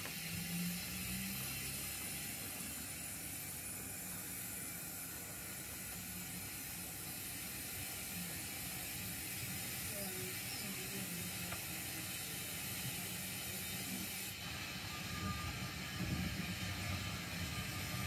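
0 gauge model railway shunting engine running slowly with a rake of wagons: a steady mechanical rumble of wheels on track with a light clicking, a little louder near the end.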